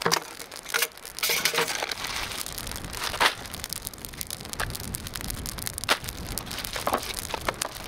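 Rummaging through plastic-bagged food inside a plastic barrel: crinkling and rustling of bags with many short knocks and clicks.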